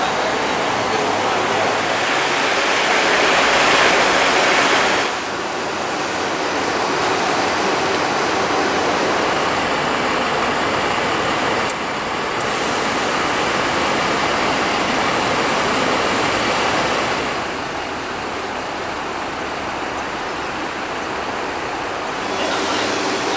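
Steady hiss of parked Mercedes-Benz Citaro buses, with no clear engine note. It changes abruptly several times as one stretch of sound gives way to another.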